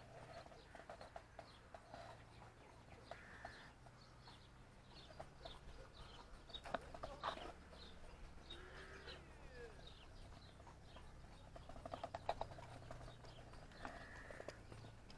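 Faint scattered clicks and knocks, in quick clusters about seven and twelve seconds in, with a few short animal calls and a low steady hum underneath.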